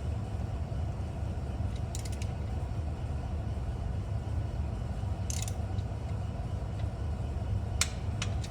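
A steady low hum in the background, with a few short, sharp metallic clicks of hand tools working the exhaust header bolts: one about two seconds in, one past five seconds, and two close together near the end.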